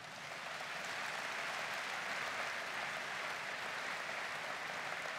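Large indoor audience applauding, a dense steady clapping that builds up over the first second and holds.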